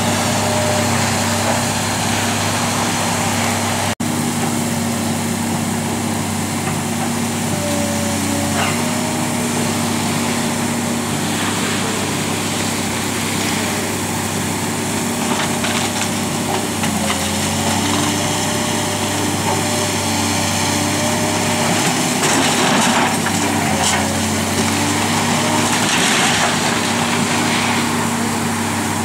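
Diesel engine of a Link-Belt 210 hydraulic excavator running steadily, its pitch shifting as the hydraulics take load, with crunches and crashes of wooden debris several times as the building is torn down.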